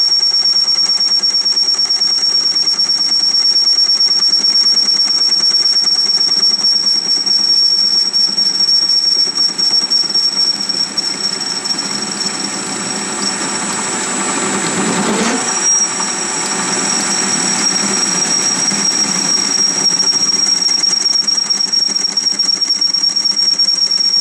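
Metal lathe turning a rusty steel faceplate, the tool cutting it with a steady high whistle over the running machine. About two-thirds of the way through, the whistle breaks off briefly, the cut sounds rougher and lower, and the whistle returns slightly higher.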